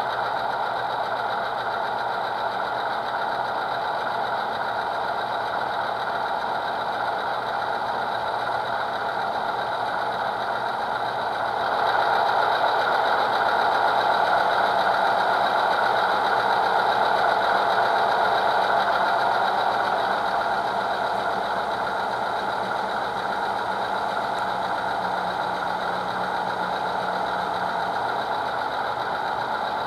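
HO-scale Santa Fe PA and PB diesel locomotives' ESU Select sound decoders playing a diesel engine sound through small speakers, running steadily. It grows louder about twelve seconds in and settles back about eight seconds later.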